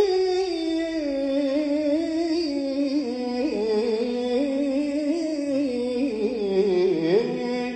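A man's solo unaccompanied voice singing a Turkish Islamic devotional kaside: a long wordless melisma full of quick ornamental turns. The line sinks gradually in pitch and settles on a held note near the end.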